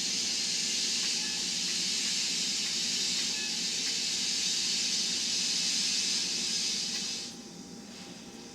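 Recorded steam-locomotive hiss played by the LokSound sound decoder's small speaker in an N scale Trix Bavarian S 3/6 steam locomotive model: a steady release of steam that cuts off sharply about seven seconds in.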